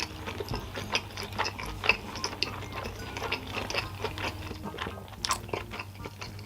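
A person chewing food close to the microphone, with many short, quick mouth clicks and smacks. The food is fried sauce yakisoba noodles with a fried egg.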